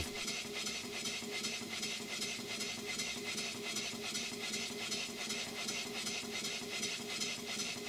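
Large horizontal model steam engine running steadily, with its belt-driven governor spinning: an even, rapid rhythmic beat with light mechanical rattle.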